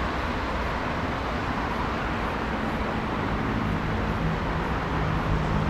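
Steady city street traffic noise, with a vehicle's low engine hum growing louder in the second half.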